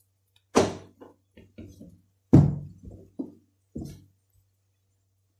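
Dull thunks and knocks on a kitchen worktop as rghaif dough is worked by hand and rolling pin: about seven short impacts, the loudest about half a second and two and a half seconds in, over a faint steady electrical hum.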